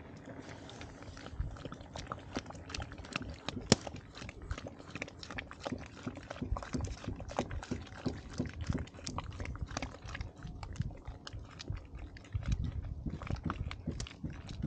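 A ladle stirring and beating thick stinging-nettle soup in an iron wok: a wet, sloppy churning with frequent irregular clicks and knocks of the ladle against the pan, heavier near the end.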